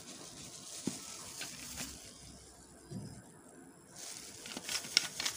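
Faint wet swishing of a silicone spatula stirring foamy liquid soap in a plastic bowl, with a few light clicks. It goes quieter about two seconds in.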